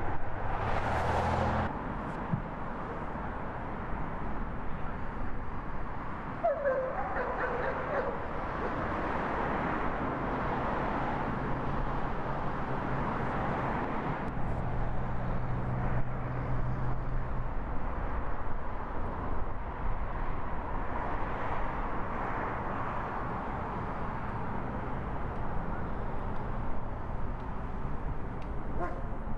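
Tree-removal machinery running steadily, its engine giving a low steady hum under a loud outdoor noise, with a brief falling pitched call about seven seconds in.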